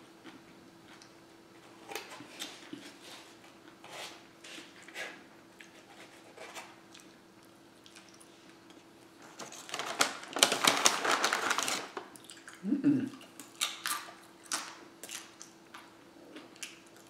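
Eating at a table: scattered light clicks of a fork against a dish, and chewing, with a louder dense stretch of crackling about ten seconds in and a short low falling sound just after it. A faint steady hum runs underneath.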